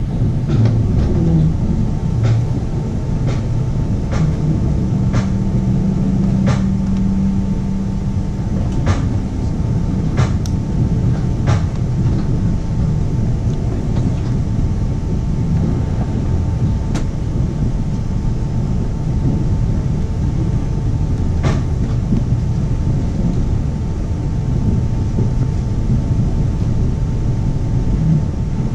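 Passenger train running along the line, heard from inside a 25T coach: a steady low rumble from the wheels on the rails. Sharp clicks come now and then, most often in the first half.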